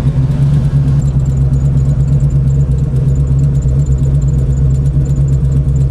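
Chevrolet 502 big-block V8 crate engine, fitted with an aftermarket cam and intake manifold, idling steadily with a classic hot rod sound. It is idling at an air-fuel ratio of about 13 to 1, which the tuner thinks could be a little leaner.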